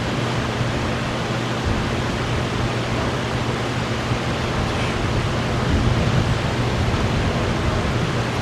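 Steady hiss with a low hum underneath, even throughout.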